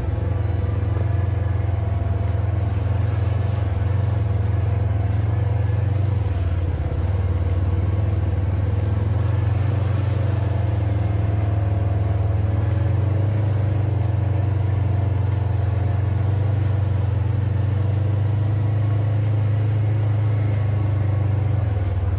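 Side-by-side UTV engine running steadily while cruising along a dirt trail, heard from on board as a constant low drone.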